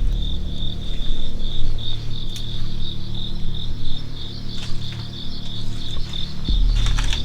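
Crickets chirping in a steady pulsing rhythm, about three pulses a second, over a loud low rumble, with a low thump near the end.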